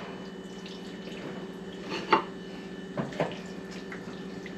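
A few short clicks and taps, about 2 and 3 seconds in, as food is scooped and tasted, over a steady low electrical hum.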